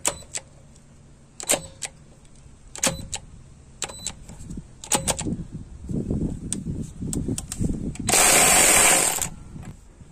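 Craftsman V20 cordless powered ratchet on a lug nut tightened well past its 35 ft-lb rating: a few sharp clicks and knocks, then the motor straining under load for about two seconds. Near the end comes a loud, even rushing noise lasting about a second.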